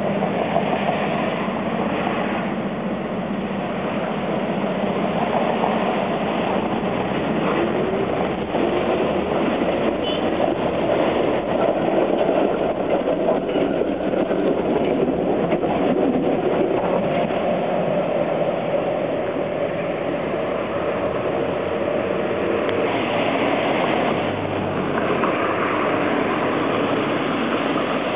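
Toronto TTC streetcar running along its street-track rails, steel wheels on the rails mixed with city traffic on wet pavement.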